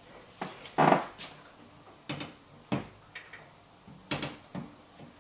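Secondary glazing sash being handled into its frame: a handful of separate knocks and clunks as the panel meets the track, the loudest about a second in.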